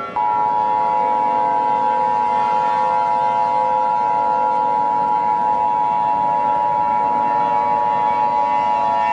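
Emergency Alert System attention signal: two steady high tones sounded together, starting abruptly a moment in and holding without change. A fainter, lower drone wavers underneath.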